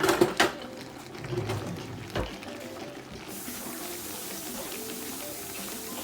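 A few light knocks, then about three seconds in a steady hiss of water being poured into the pot of porridge yam, which stops abruptly near the end.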